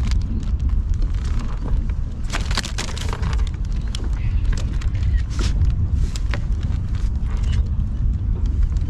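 Wind buffeting the microphone as a steady low rumble, with scattered clicks and knocks of handling in the kayak, several of them about two to three seconds in.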